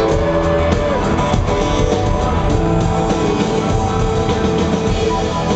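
Live rock band playing, amplified through an arena sound system, with guitar.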